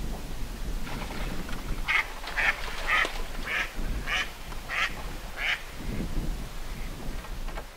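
A duck quacking: a run of about seven quacks, a little under two a second, starting about two seconds in.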